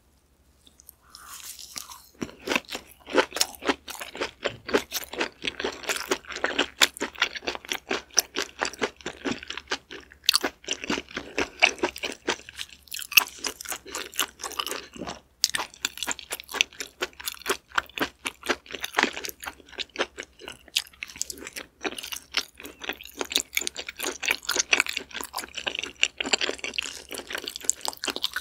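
Close-miked eating: crisp crunching of a seaweed (gim) wrap and wet chewing in the mouth, starting about two seconds in. Dense, irregular crackles continue with a brief lull near halfway.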